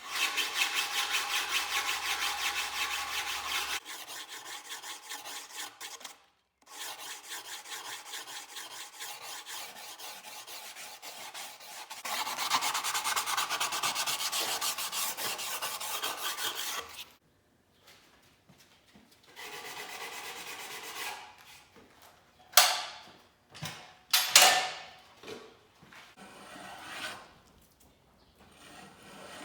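A hand tool scraping a wooden fan blade in quick, steady back-and-forth strokes, in long runs broken by short pauses, as the blade is shaped. Near the end come a few sharp knocks of wood or tool.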